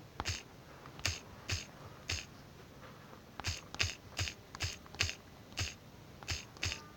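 Key taps from typing on a smartphone's touchscreen keyboard: about a dozen short clicks at an uneven typing pace, one per character keyed in.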